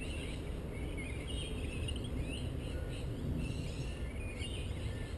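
Birds chirping and calling in many short, quick notes that rise and fall, over a steady low rumble.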